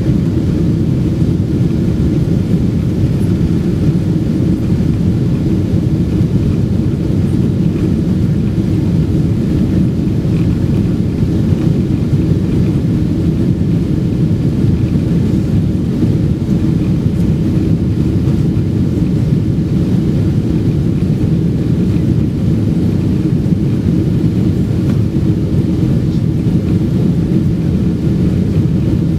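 Steady low drone of a Boeing 777-200's jet engines at climb power, with rushing airflow, heard inside the cabin as the airliner climbs after takeoff.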